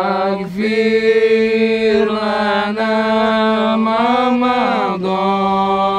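A man singing a sholawat, an Islamic devotional chant, in long held notes that waver and turn in pitch, with short breaks for breath about half a second in and near the five-second mark.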